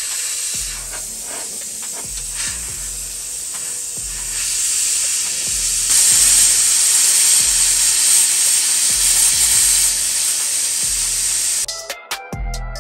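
Plasma cutter hissing steadily as it cuts through rusted sheet steel, getting louder about halfway through and cutting off abruptly near the end. Background music with a steady low beat runs underneath.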